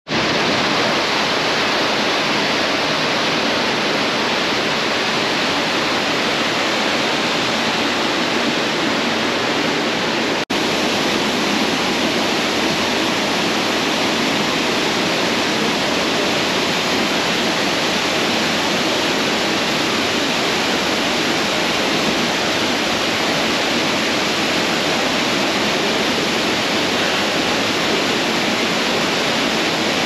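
Small canyon waterfalls pouring into a rock pool: a loud, steady rush of falling water, broken once by a momentary dropout about ten seconds in.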